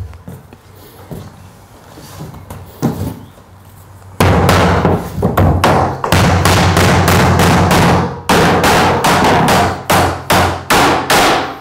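Hammer driving nails into wooden floorboards: a few light taps, then from about four seconds in a fast, loud run of blows, about three a second.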